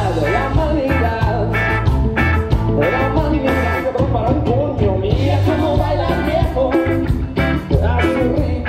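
Live rock band playing through a PA: electric guitars, electric bass, keyboard and drums, with a male lead vocal over a steady beat.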